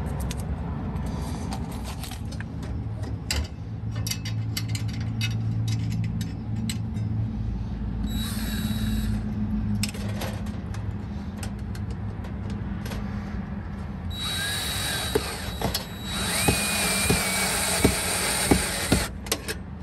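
Cordless drill running in bursts against a solar attic fan's metal mounting bracket, driving the fasteners that hold the fan in place. There is a short run about 8 seconds in and a longer run from about 14 seconds to near the end, with a motor whine that rises in pitch and clicks of the bit against metal.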